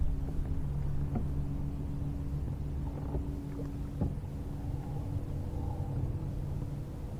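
A steady low mechanical hum, with a few light knocks about one and four seconds in.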